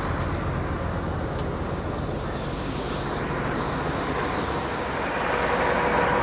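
Machinery running while soybeans are unloaded from a wagon toward the bin, likely a grain auger: a steady rushing noise over a low engine hum. The hum drops away about four and a half seconds in, and a steady whine comes in near the end.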